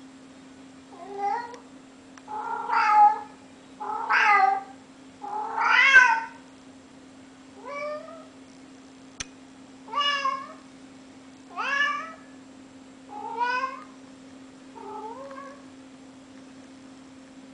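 Domestic cat meowing over and over, about nine drawn-out meows a second or two apart, the loudest ones in the first half. A steady low hum runs underneath.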